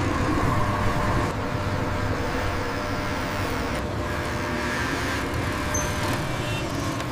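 Steady street-traffic noise, a continuous rumble of vehicles with a faint hum, changing slightly in character about a second in and again about four seconds in.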